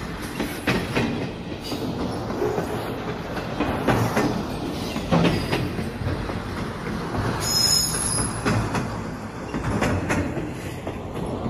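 Passenger train running, heard from inside the coach by the open door: a steady rumble with the wheels knocking over rail joints. About eight seconds in there is a brief high-pitched wheel squeal as the train nears its station.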